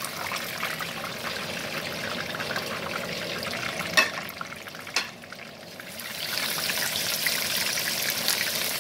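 Fish frying in hot oil in a stainless steel pan, sizzling and crackling. Two sharp clicks of metal tongs against the pan come about four and five seconds in; the sizzle dies down briefly, then swells again about six seconds in as a fresh piece of fish goes into the oil.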